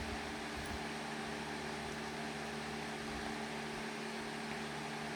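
Steady machine hum with an even hiss, like a running household appliance.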